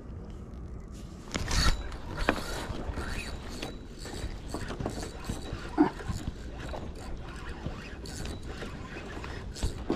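Fishing reel mechanism clicking and ticking irregularly, the gear and ratchet sounds of a rod-and-reel in use.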